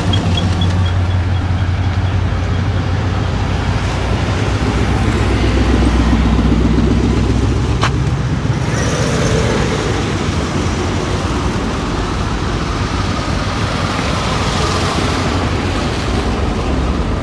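Classic car engines, among them a 1960s Lincoln Continental convertible's V8, running at low speed as the cars roll slowly past; a deep, steady rumble that swells a little midway.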